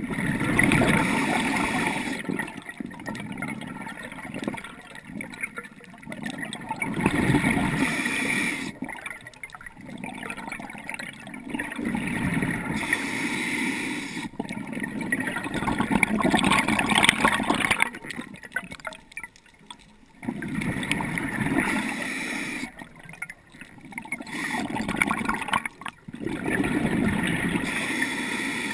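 Underwater breathing of a scuba diver: bursts of exhaled bubbles gurgling out of the regulator every few seconds, with quieter spells between breaths.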